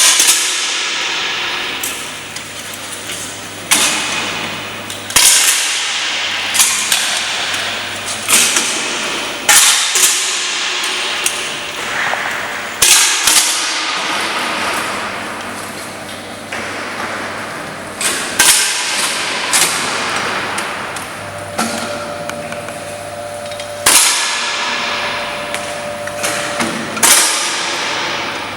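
Air rifles being fired by several shooters, a sharp crack every second or two at irregular intervals. Each crack echoes in the hall.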